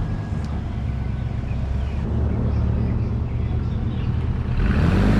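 A motor running steadily with a low hum, growing louder with a rising pitch near the end.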